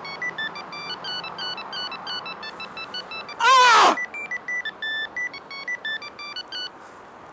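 A man cries out in pain once, a short loud yell falling in pitch about three and a half seconds in, over a simple electronic melody of short high beeping notes.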